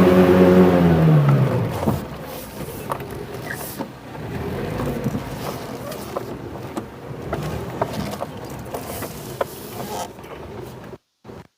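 The SUV's 2.2-litre engine revs hard in a charge up a muddy slope, and the revs fall away and drop off about a second and a half in. After that comes quieter rough running with scattered clicks and knocks.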